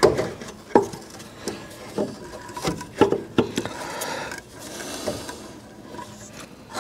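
An alternator being offered up by hand to a water pump plate bracket on an engine for a dry fit: irregular metal knocks and clicks, with some scraping of metal on metal in the middle.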